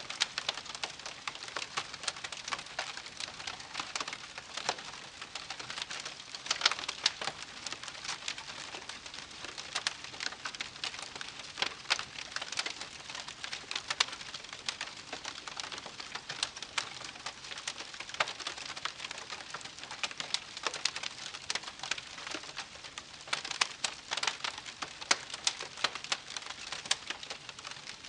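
Wood campfire crackling steadily, with dense small snaps and a scattering of louder sharp pops from the burning wood.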